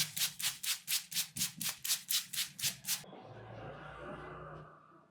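Rapid, even rattly tapping of a head massage, about four strokes a second, made by loose fingers or cupped hands patting the head. It stops abruptly about three seconds in and gives way to a soft rubbing rustle that fades away.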